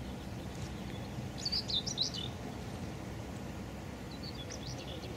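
Small birds chirping in two short clusters of high calls, over a steady low background noise.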